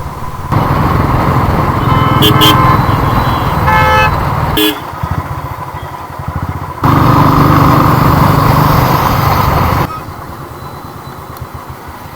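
Motorcycle riding through traffic: steady engine and road noise, with other vehicles' horns honking several times between about two and five seconds in. The level jumps up and down abruptly a few times.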